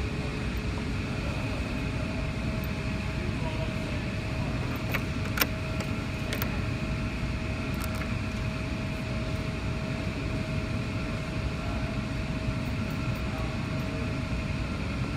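Steady low workshop hum, with a few light metallic clicks about five to eight seconds in as small bolts and washers are handled on the bench.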